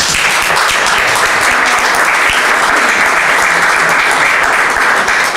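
Audience applauding: a steady clatter of many hands clapping at once.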